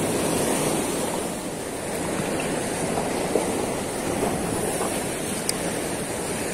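Sea surf washing against shoreline rocks, a steady rushing wash of breaking waves.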